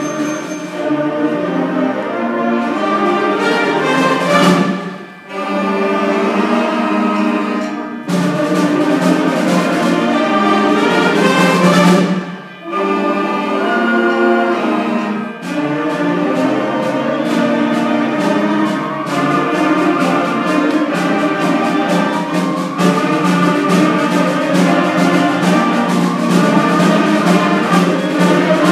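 School concert band playing, brass to the fore over woodwinds and percussion: loud sustained chords broken by short breaks about five and twelve seconds in, then a fast, even pulse of repeated notes from about sixteen seconds on.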